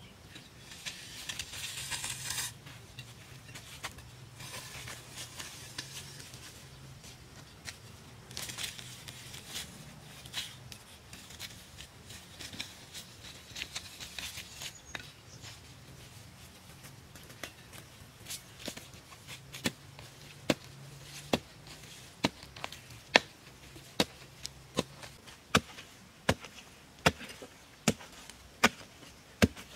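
A curved metal blade scraping and hacking at grass and dry soil in several short spells, then, after about eighteen seconds, a long wooden-handled digging tool striking into the earth in a steady run of sharp knocks, a little over one a second. The knocks are the loudest sounds.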